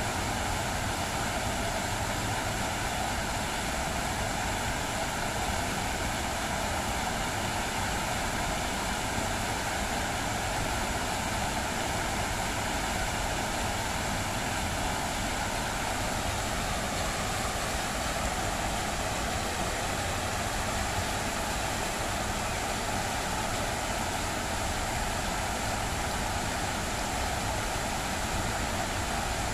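Many fountain water jets splashing down into the basin: a steady rushing of water, with a faint steady hum underneath that dips slightly in pitch about halfway through.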